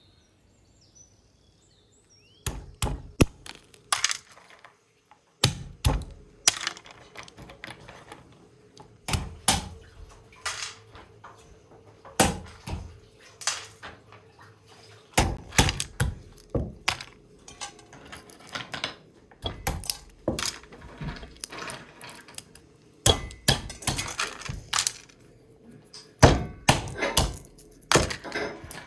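Walnuts being cracked with a small hammer on a wooden board: repeated sharp knocks in irregular clusters as the shells break, starting about two seconds in.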